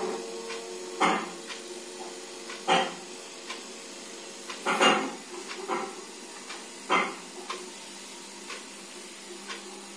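Film soundtrack playing through a CRT television's speaker during a quiet scene: a few sharp clinks and knocks a second or two apart over a faint steady hum.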